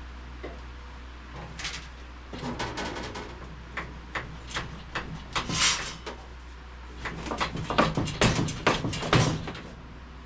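Foot-operated sheet-metal shear being worked: a series of metallic clanks and scrapes as the treadle is stepped down and the blade cuts the sheet. Scattered knocks early on give way to a loud clank a little past halfway and a quick run of clanks over the last few seconds.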